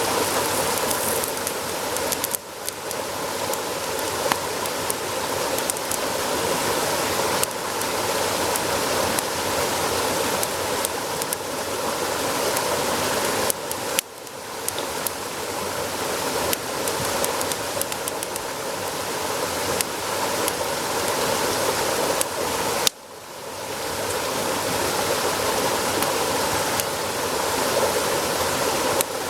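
Meat sizzling on a grill over a campfire, a dense steady hiss full of small pops and crackles. The sizzle drops away suddenly three times, about two, fourteen and twenty-three seconds in, and builds back up each time.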